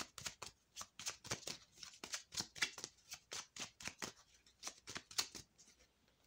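A deck of Wishcraft affirmation oracle cards being shuffled by hand: a quick, irregular run of soft card flicks and slaps, several a second, ahead of drawing a single card.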